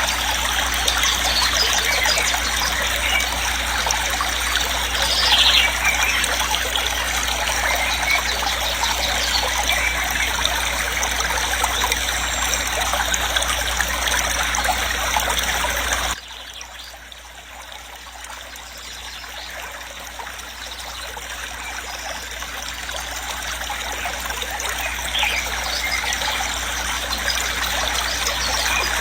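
Waterfall rushing steadily. About halfway through it drops suddenly much quieter, then slowly builds back up to full level.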